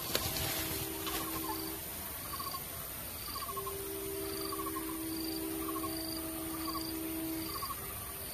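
Animal calls in a steady rhythm: short pulsed chirps, about three every two seconds. A low steady drone comes in about three and a half seconds in and stops shortly before the end. There is a rustle of undergrowth in the first second.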